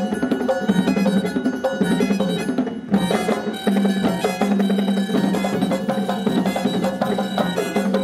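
Music with drums and other percussion playing a fast, steady rhythm, with a brief dip about three seconds in.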